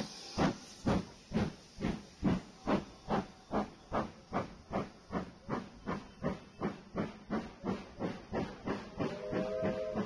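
Steam locomotive chuffing, its exhaust beats quickening from about two to three a second as it gathers speed. About a second before the end, a steam whistle sounds a short chord over the chuffs.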